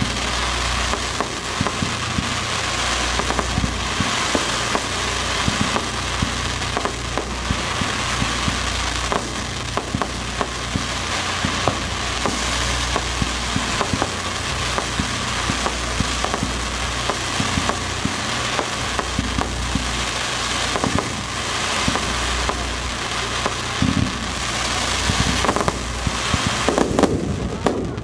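Fireworks display heard at close range: a dense, continuous crackle of many small bursts, with louder, sharper cracks coming in quick succession near the end.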